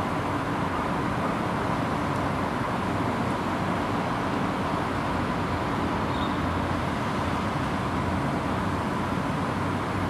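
Steady outdoor background noise: an even low rumble with a faint steady high tone, no distinct events.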